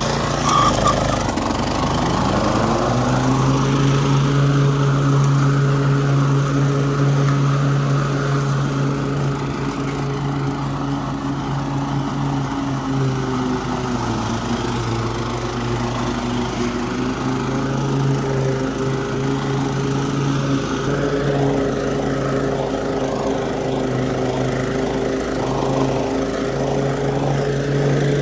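Gas walk-behind lawn mower engine running up to speed in the first few seconds, then running steadily while mowing, with a brief dip in speed about halfway through.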